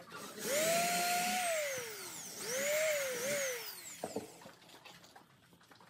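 Handheld electric drill boring into wood in two runs of about two seconds each, the motor whine rising as the trigger is pressed and sinking away as it is released.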